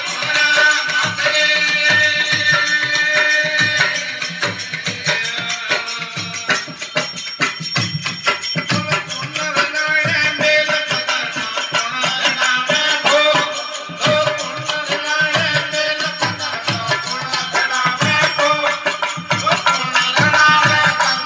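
Marwari folk bhajan music: a plucked desi veena with hand-drum and jingling percussion keeping a fast, steady beat.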